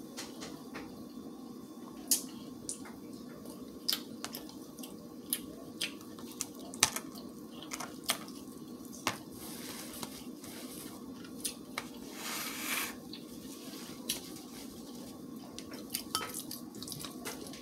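Close-up eating sounds: chewing and mouth smacks with a plastic spoon knocking and scraping in a bowl of rice, heard as scattered sharp clicks, over a faint steady hum.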